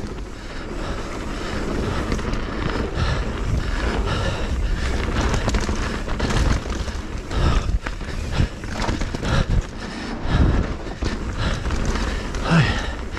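Mountain bike riding fast down a dirt flow trail: a steady rush of wind and tyre noise, with scattered knocks and rattles as the bike goes over bumps.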